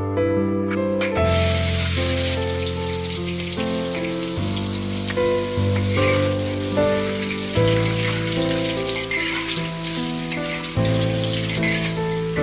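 Food sizzling as it fries in hot oil, a steady hiss that starts abruptly about a second in, under background music of sustained pitched notes.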